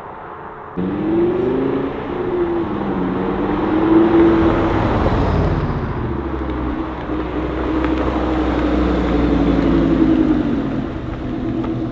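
BMW M550i's twin-turbo V8 exhaust, fitted with high-flow catted downpipes, running under throttle. The engine note rises and falls and rises again in the first few seconds, holds fairly steady with a deep rumble, then drops near the end.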